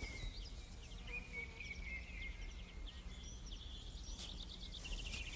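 Small songbirds chirping and calling over quiet woodland ambience, with a quick run of chirps about four seconds in.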